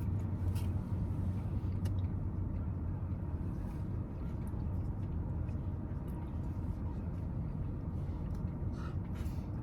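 Steady low rumble of an idling car, heard from inside the cabin, with a few faint clicks over it.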